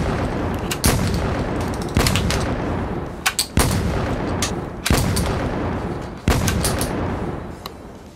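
A series of added blast sound effects: five sudden bangs about a second and a half apart, each trailing off over about a second, with a few short crackles in between.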